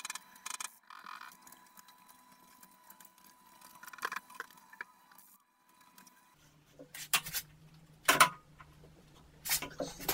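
Short hisses of an aerosol spray-paint can in the first second, then a low steady hum sets in with several sharp metal clanks, the loudest about eight seconds in, as a metal workpiece is clamped in a milling machine's vise.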